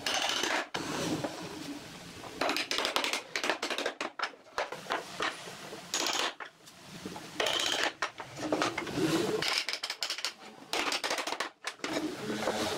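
Workshop handling noise: irregular clusters of knocks, clinks and short scrapes of hard tools and pieces being worked and set down.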